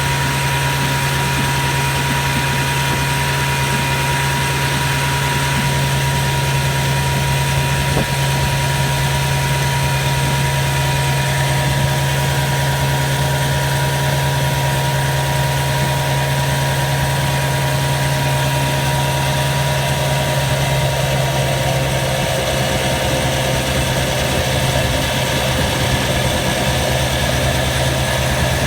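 1954 Evinrude Fleetwin 7.5 hp two-cylinder two-stroke outboard motor running steadily at a constant throttle setting, its freshly rebuilt powerhead holding an even note.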